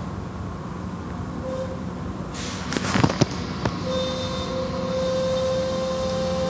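Automatic tunnel car wash machinery heard from inside a car: a steady hum, with a rush of spray and a few sharp knocks about three seconds in, then a steady whine.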